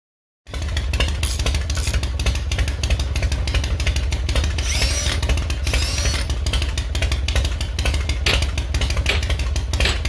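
A loud engine running, with a strong low rumble and a rapid, steady stream of firing pulses, starting abruptly about half a second in.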